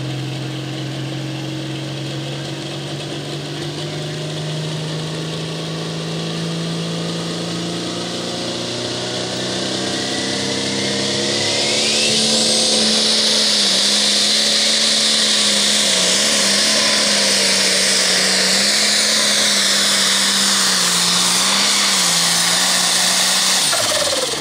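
Turbocharged diesel pulling tractor of the Limited Pro Stock class working under full load against the sled. The engine holds a steady note, then about halfway through it revs higher and gets louder as a rising turbo whistle comes in. It holds at high revs with small dips, then eases off right at the end.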